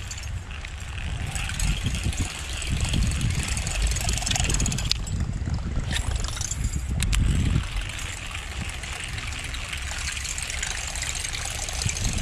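Buzzbait being retrieved across the surface of a canal, its spinning blade churning and gurgling in the water, with a few sharp clicks partway through. The lure is running a little too deep and taking in too much water, which spoils its buzz; the rod needs lifting.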